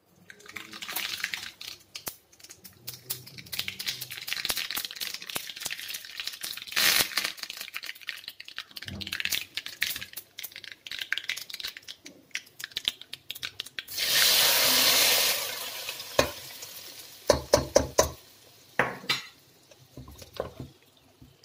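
Mustard seeds crackling and sizzling in hot coconut oil in a small tempering pan, a dense hiss full of sharp pops. About 14 s in comes a loud burst of sizzling lasting a second and a half, followed by a series of metal knocks of pan and spoon against a cooking pot.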